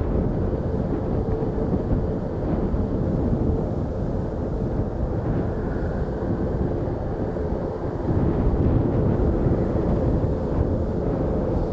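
Jet airliner engines rumbling, mixed with wind buffeting the microphone; the rumble grows a little louder about eight seconds in.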